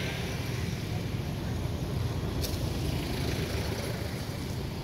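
Steady low rumble of outdoor background noise, with one short click about two and a half seconds in.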